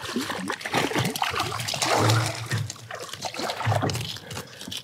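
Hooked rainbow trout splashing and thrashing at the water's surface beside the boat as they are brought to the landing net, in irregular wet bursts.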